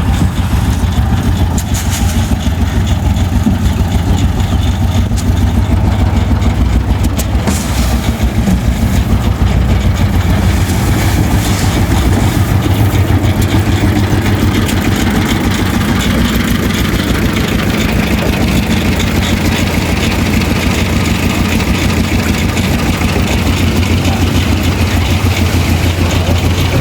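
An engine running steadily at constant speed, with a strong low hum and a rapid even pulsing.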